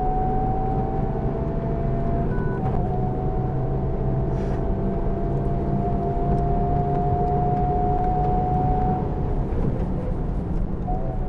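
Honda Civic Type R's turbocharged 2.0-litre four-cylinder engine at full throttle, heard inside the cabin over road noise. Its pitch climbs slowly with a brief dip about two and a half seconds in, then the engine tone drops away about nine seconds in as the throttle comes off.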